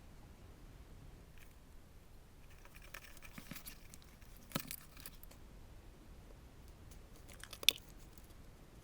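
Light handling noises: a spell of soft rustling and small clicks in the middle, a knock about halfway through, and one sharp click near the end.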